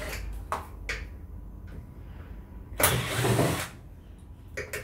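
Cordless drill/driver running in one short burst of just under a second, spinning a screw at the bottom of a washing machine's front panel, after a few light clicks.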